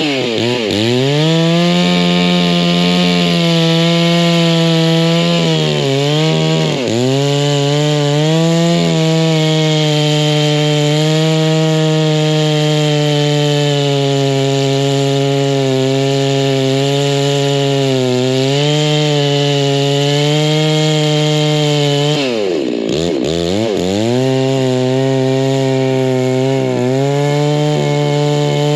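Stihl chainsaw running at high revs while bucking firewood. Its pitch drops sharply and comes straight back up about 7 seconds in and again near 23 seconds, as the revs fall and the saw is throttled up again.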